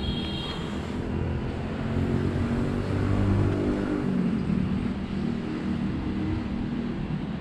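Low rumble of a motor vehicle's engine, swelling for a couple of seconds in the middle and then easing off.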